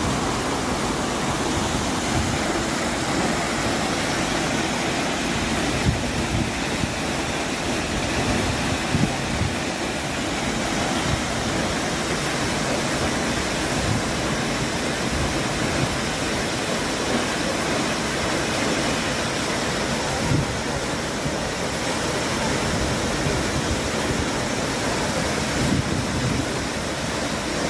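Athirappilly Falls, a large river waterfall, pouring steadily: a dense, even rush of water noise that hardly changes in level.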